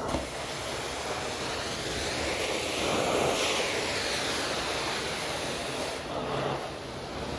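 Hot-water extraction carpet-cleaning wand drawing water and air out of a synthetic rug: a steady vacuum rush that swells louder and eases as the wand is worked across the pile.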